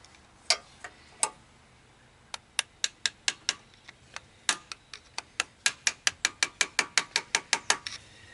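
Sharp metal taps on a screwdriver driven into the top of a seized carburetor, struck with a pair of diagonal cutters to knock a stuck throttle slide down and free it. A few scattered taps, then a steady run of about four taps a second from just over two seconds in.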